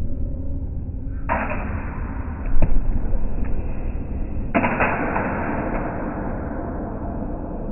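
Slowed-down sound of a saber fencing exchange: a low rumble, two sudden rushes of noise about three seconds apart that each fade over a second or two, and a sharp knock between them.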